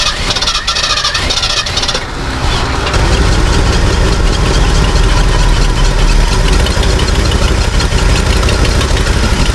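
1969 Ford F250 Highboy's engine cranked by the starter with a rapid rattling whirr for about two seconds. It catches and settles into a steady idle about three seconds in. The idle carries a leak noise that the owners are trying to trace, and which they suspect could be an exhaust leak or a leaking carburetor base gasket.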